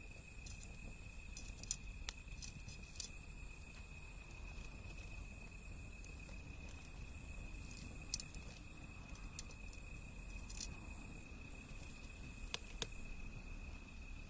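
Wood fire burning, with irregular sharp crackles and pops over a low steady rumble; a steady high tone runs underneath.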